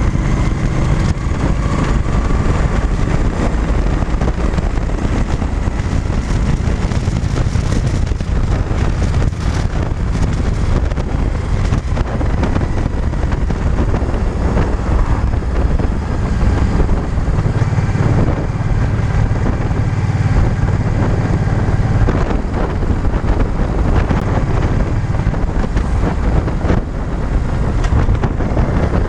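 Cruiser motorcycle engine running at road speed, with heavy wind noise on the microphone.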